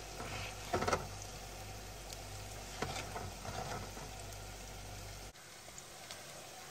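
Hot oil sizzling and bubbling around breaded chicken doughnuts deep-frying in an electric deep fryer basket, with a few light knocks. A low hum beneath cuts off suddenly about five seconds in.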